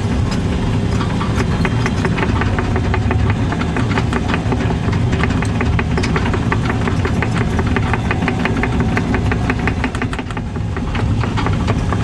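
Excavator's diesel engine running steadily, with a rapid clicking clatter throughout; it eases off slightly near the end.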